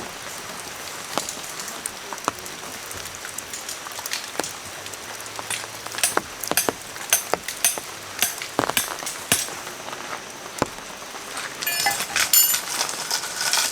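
Rain falling, a steady hiss with irregular drops tapping one by one, some louder than others. Near the end comes a short burst of rapid ticking.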